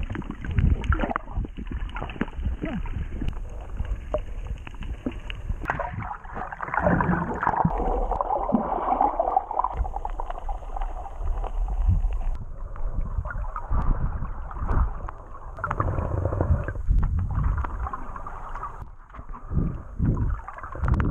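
Muffled underwater sound from a camera in a waterproof housing: water gurgling and sloshing, with irregular low thumps and swishes as swimmers move through the water.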